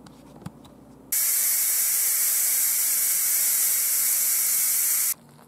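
Steam hissing out of the pressure release valve on the lid of a 2-quart Cook's Essentials electric pressure cooker, venting the pressure after cooking. A loud, steady hiss starts suddenly about a second in and cuts off about four seconds later.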